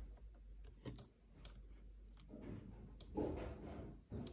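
A few faint, irregularly spaced computer mouse clicks, about five in all.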